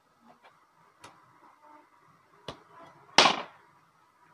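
A few light clicks of hand tools working on a Sony A7 II camera body, then, a little past three seconds in, one short, much louder clatter of metal tweezers set down on the paper-covered glass tabletop.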